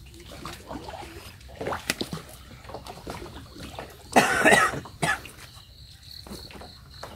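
A person coughs hard about four seconds in, then once more, shorter, just after. A few small knocks come before it, and an insect's faint pulsing high trill starts in the last second or so.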